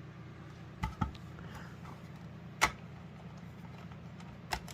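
Hard plastic smoke alarms and their parts being handled: a few light clicks and knocks, the sharpest about two and a half seconds in, over a steady low hum.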